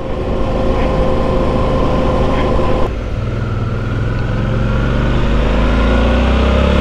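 Motorcycle engine running under way over wind and road noise; its note breaks off abruptly about three seconds in, then rises steadily as it pulls again.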